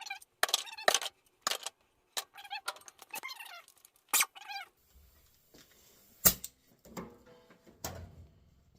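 Loose metal parts and hand tools clinking and knocking at irregular intervals as engine head bolts are handled, with a few short pitched sounds that rise and fall in between.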